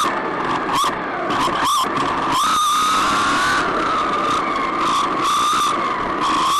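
An RC car's motor and drivetrain whining steadily, the pitch wavering up and down with the throttle. Repeated bursts of hiss come from the tyres on the tarmac.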